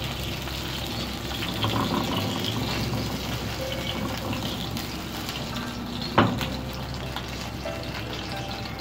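Steady hiss of hot oil still sizzling in the frying pan, with a single sharp clink about six seconds in.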